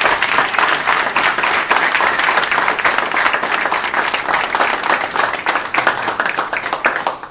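An audience applauding: dense, steady clapping that stops abruptly near the end.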